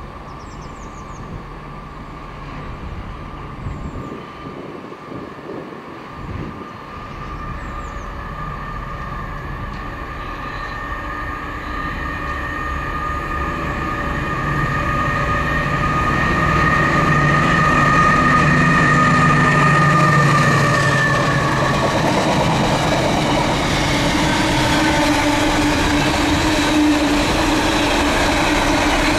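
A train approaching and running past, growing steadily louder over about twenty seconds, with a steady high whine that drops slightly in pitch as it goes by, then a continuing rumble of the train.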